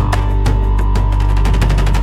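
Background music: a loud, driving soundtrack with a deep sustained bass and rapid percussion hits.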